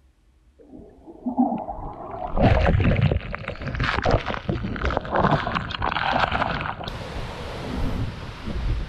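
Muffled gurgling and bubbling of water heard through an underwater camera. About seven seconds in it cuts abruptly to a steady rushing hiss from a waterfall's plunge and spray at the surface.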